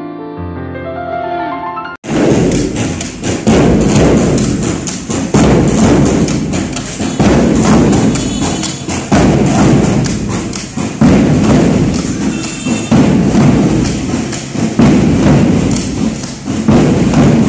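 Piano music that cuts off abruptly about two seconds in, followed by a scout drum band beating bass drums and side drums, a dense, loud drum pattern with heavy accents about every two seconds.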